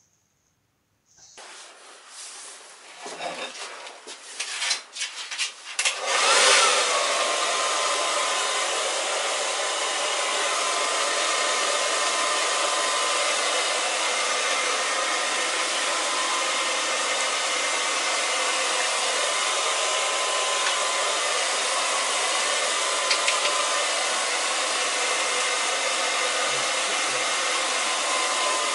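A few knocks, then a handheld hair dryer switched on about six seconds in, running steadily with a whining tone as it blows on a small dog's fur.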